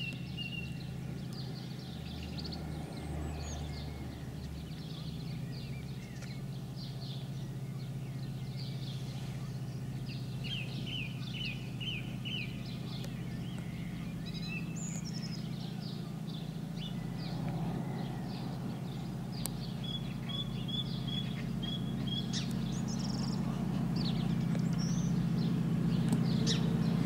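Locomotive of an approaching freight train, heard as a low steady engine drone that grows gradually louder as it nears. Small birds chirp and twitter over it.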